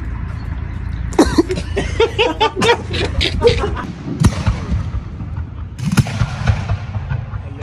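Consumer aerial fireworks going off, with sharp bangs about four and six seconds in. Before them, for a couple of seconds, people's voices, laughing or calling out.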